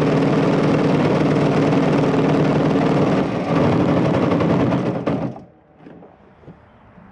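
Twin-engine go kart's two single-cylinder Honda-clone engines running steadily under load, then dying away about five seconds in. The engine noise falls to quiet. The driver thinks he lost an engine, and the crew later find a blown ignition coil.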